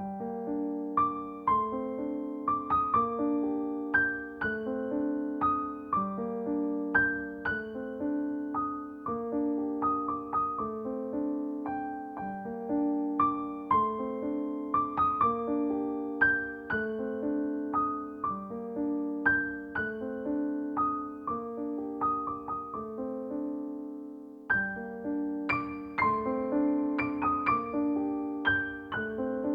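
Background piano music: a slow, even melody of struck notes over repeating chords. It begins suddenly.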